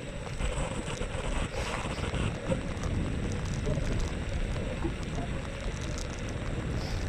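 Riding noise on a Xiaomi M365 electric scooter: wind rumbling on the microphone and road rumble, steady throughout, with a faint steady hum under it.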